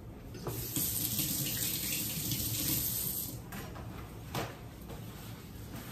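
Water running from a tap for about three seconds and then shut off, followed by a couple of light knocks.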